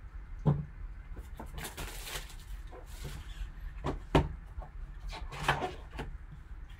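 A shrink-wrapped trading card box being unwrapped and handled: plastic wrap crinkling and tearing, with several sharp cardboard knocks, the loudest about half a second in and at about four seconds.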